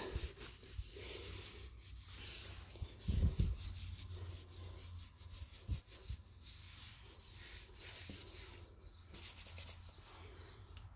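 Oil-soaked cloth rag rubbing and wiping along the painted frame tubes of a Mongoose Terrex mountain bike, working into leftover sticker glue to loosen it. The rubbing is soft and uneven, with a few low soft knocks around the middle.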